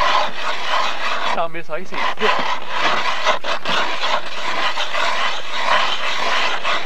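Hand-cranked ice auger boring into lake ice, its blades grinding and scraping steadily as it turns. A short voice-like sound cuts in about a second and a half in.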